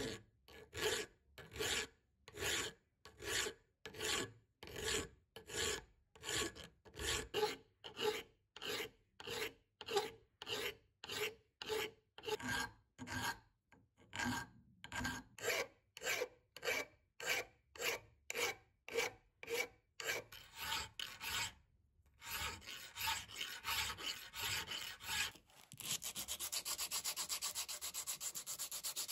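Hand file rasping across a cast-iron pipe vise frame in regular strokes, about two a second, filing down high spots and casting marks. After a brief pause near the end, quick back-and-forth hand sanding of the cast iron takes over.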